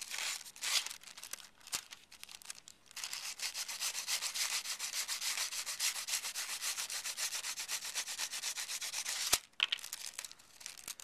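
Emery board rasping along the edge of a balsa wing rib, filing off the overhanging tissue paper covering. A few scratches come at first. About three seconds in, a fast, steady run of back-and-forth strokes begins at roughly ten a second and stops abruptly near the end.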